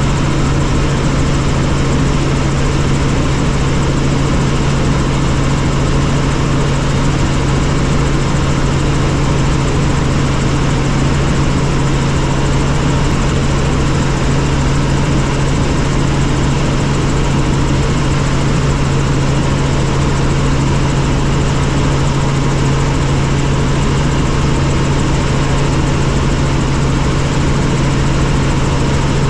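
Helicopter in flight: loud, steady engine and rotor noise with a constant low hum.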